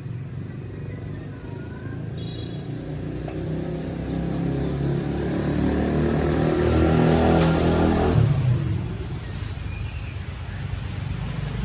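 A motor vehicle engine running, growing louder to a peak about eight seconds in, then dropping off sharply.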